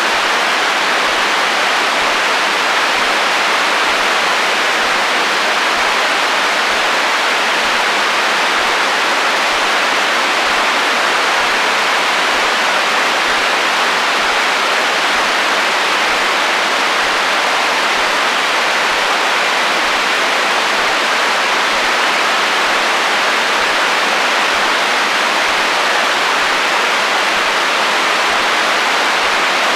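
Radio receiver static: steady, unbroken hiss of FM/HF-band interference, with almost no bass.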